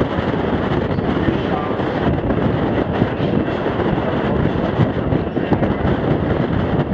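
A passenger train coach rolling along the track: a steady rumble and rattle of wheels on rail, with scattered knocks.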